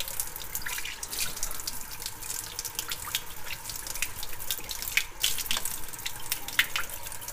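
Tap running steadily into a sink, the stream splashing, with many small sharp ticks and spatters through it.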